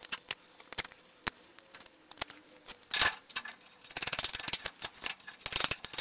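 Bolt and small metal hardware clicking and clinking as they are handled and fitted into a steel chassis mount for a suspension limit strap: scattered light clicks, with a quick run of them about four seconds in.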